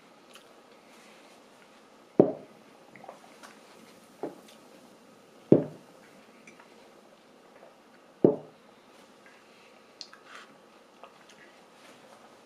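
A tall drinking glass set down on a cloth-covered table three times, each a short dull thud, with a smaller knock and faint handling sounds between as it is lifted away and emptied of smoothie.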